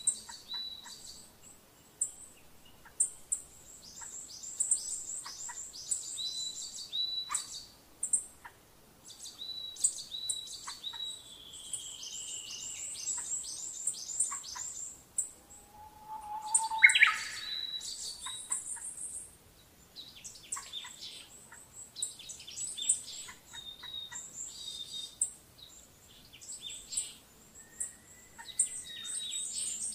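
Birds chirping in fast, repeated high trills, with a few short gliding whistled calls and scattered clicks; a louder sharp call stands out about halfway through.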